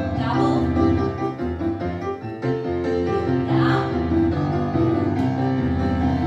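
Solo piano playing ballet class accompaniment for a barre frappé exercise.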